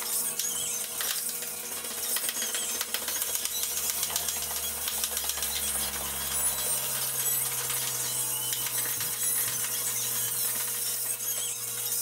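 Ratchet wrench clicking in irregular runs, with light metallic clinks, as a bolt on a bench vise's swivel base is turned.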